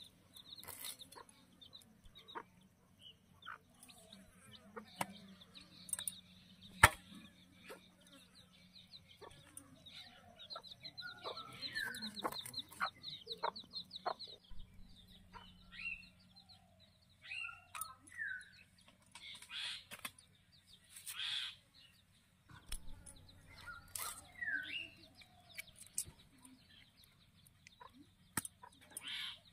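Domestic chickens clucking on and off, with scattered short bird chirps. A high rapid trill runs for a few seconds near the middle, and a single sharp knock about seven seconds in is the loudest sound.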